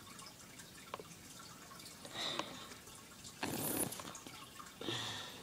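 Wet mouth noises close to the microphone: three short slurping bursts, the loudest about three and a half seconds in.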